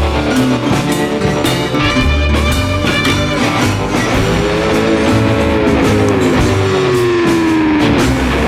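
Background rock music with guitar and drums, a guitar line bending and sliding down in pitch in the second half.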